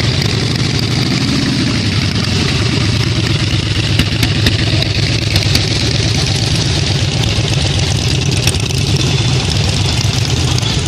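Harley-Davidson V-twin motorcycle engine running steadily.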